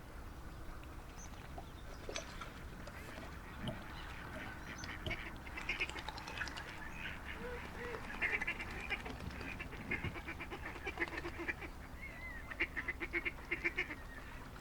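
A mother duck and her ducklings calling: runs of short, quick calls, denser in the second half.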